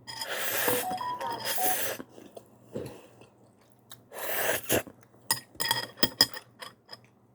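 Close-up eating of ramen: a long slurp and chewing sounds, then a quick run of sharp clicks near the end.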